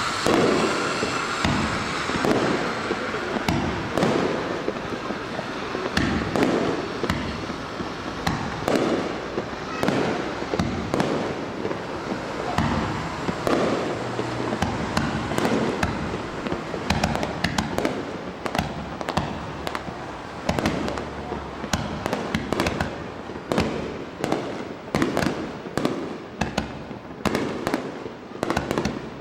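A fireworks display with aerial shells bursting one after another, booming and crackling. The bangs are spaced out at first and come thicker and faster from about halfway through.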